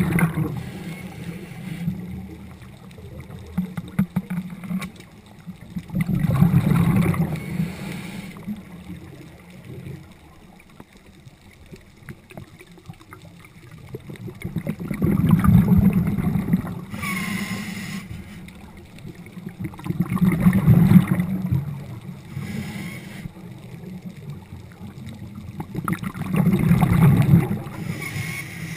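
Scuba regulator breathing underwater: a rush of exhaled bubbles about every six seconds, five times, with quieter stretches between breaths.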